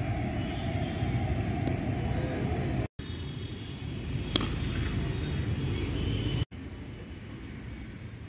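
Steady low traffic rumble with faint voices, broken off twice by sudden cuts, and a steady hum for the first three seconds. A single sharp crack a little over four seconds in: a cricket bat hitting the ball.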